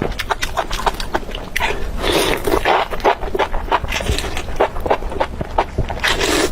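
Close-miked eating sounds: rapid wet chewing clicks and mouth smacks, with two longer, noisier stretches about two seconds in and near the end.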